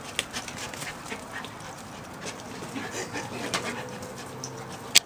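Poodle puppies scampering and nosing among plastic ball-pit balls: scattered light clicks and knocks, with one sharp click near the end.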